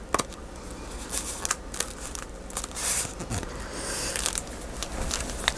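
Paper and heavy card being handled, with scattered rustles, crinkles and small clicks.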